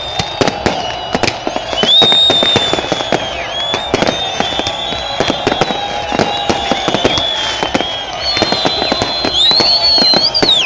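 Fireworks going off in rapid succession: a dense run of sharp cracks and bangs, with high whistling tones over them.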